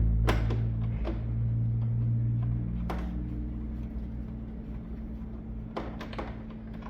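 Low rumble that is strongest at the start and fades over the first three seconds, with a few sharp clicks and knocks of screws and tools being handled on the washing machine's cabinet.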